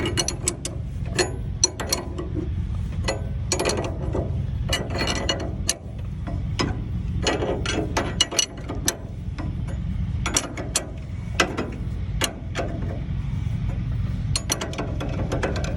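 Ratchet wrench clicking in short runs with metal clinks, tightening a slide-hammer puller on a seized baler wheel bearing. A steady low rumble runs underneath.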